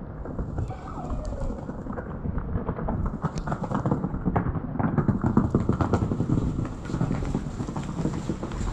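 Footsteps crunching through fresh snow at a walking pace, loudest about halfway through.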